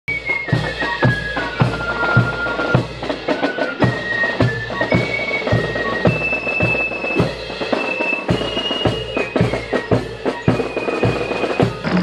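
Bagpipes playing a melody of long held notes over a steady drone, with a drum beating about twice a second.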